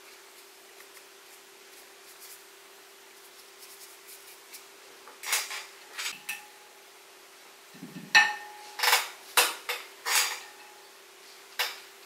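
A brush clinking against a ceramic dish as it is rinsed and reloaded with ink: about eight sharp, irregular clinks with a short ring, starting about five seconds in. A faint steady hum lies underneath.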